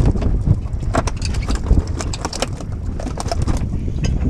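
A boat running on open water, with rumbling wind buffeting the microphone and repeated knocks and slaps throughout.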